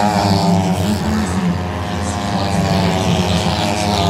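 Two sand-track racing motorcycles, 500 cc single-cylinder methanol engines, running hard as they sweep through the bend and pull away. The engine notes are loud and continuous, with the overlapping pitches of the two bikes.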